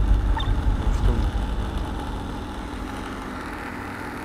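Blender motor running at speed, puréeing a batch of curry with its cooked vegetables and fruit; rough and louder for the first second or so, then steady.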